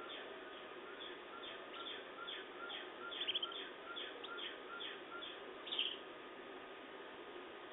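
Canaries chirping: a regular run of short, quick chirps, about two or three a second, with a couple of louder trills, stopping about six seconds in, over a faint steady hum.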